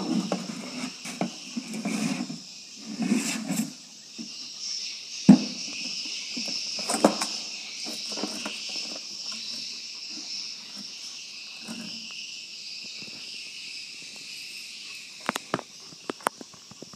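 A steady high-pitched chirring chorus. Scattered sharp clicks and knocks and low rustling thumps come over it, mostly in the first few seconds and again near the end.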